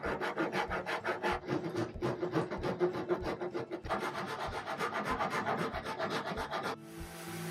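Hand rasp scraping a wooden chair part in quick, repeated back-and-forth strokes, shaping a glued-in wood patch. Near the end a power sander starts up with a steady hum.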